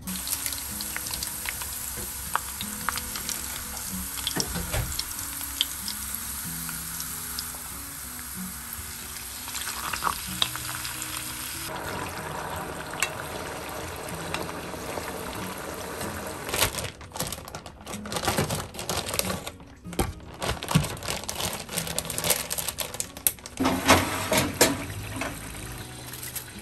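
Olive oil sizzling steadily in a frying pan for about the first twelve seconds, over soft background music. In the second half, irregular clinks and clatter of metal tongs against the stove's grill drawer and tray.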